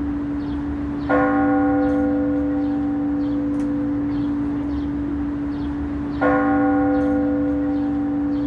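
A large temple bell struck twice, about five seconds apart. Each strike rings out and slowly fades over a deep steady hum that carries on between the strikes.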